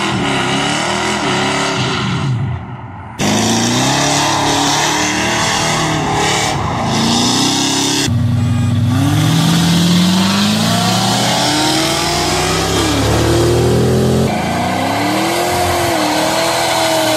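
Vehicle engines revving and accelerating in several clips cut together, from a Ford pickup and a Mustang, with the engine note rising and falling repeatedly. The sound changes abruptly about three, eight and fourteen seconds in.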